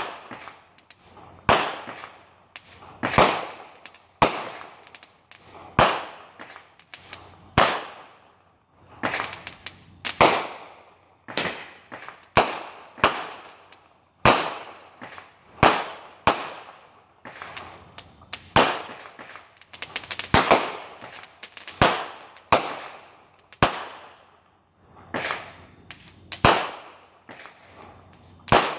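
Neighbourhood fireworks going off in a steady string of loud bangs, one every second or two, each followed by a short echo off the surrounding houses.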